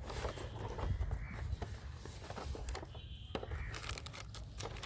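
Cardboard packaging being opened and handled: scattered clicks, scrapes and rustles of the box and its contents.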